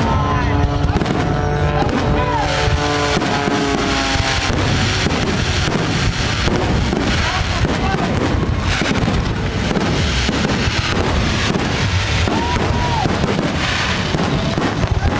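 Fireworks bursting in a dense barrage of bangs and crackles over loud music; the bangs thicken about two seconds in and keep coming.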